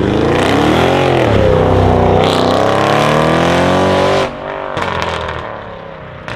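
Audi RS6 C7's twin-turbo V8 through a decatted Milltek exhaust at full throttle, its note climbing with a brief dip in pitch about a second in. About four seconds in the throttle is cut suddenly and the exhaust crackles and pops on the overrun.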